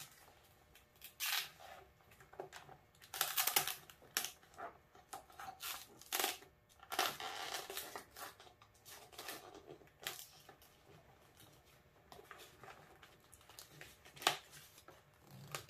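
Hands handling electrical wiring and tape: scattered rustling and crinkling with a few sharp clicks, one of the loudest near the end.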